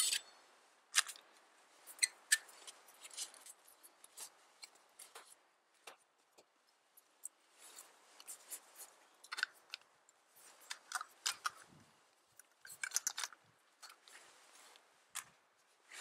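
Small camp gear handled by hand: scattered light clicks, taps and rustles at irregular intervals, with a denser run of sharper clicks near the end.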